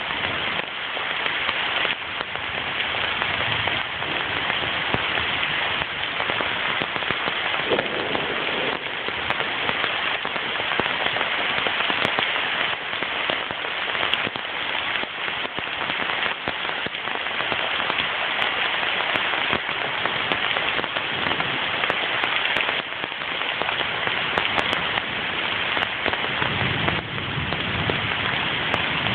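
Steady rain falling during a thunderstorm, an even hiss of drops on leaves and ground. A low rumble comes in near the end.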